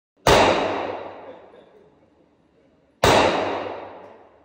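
Two rifle shots from a Smith & Wesson M&P15 AR-15-style rifle, about three seconds apart. Each crack rings out and dies away over about a second and a half in the hard-walled echo of an indoor range.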